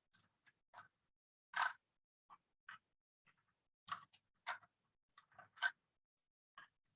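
Rubik's cube being twisted by hand: irregular plastic clicks and clacks as its layers turn, about a dozen in all, the loudest about one and a half seconds in and again near the end.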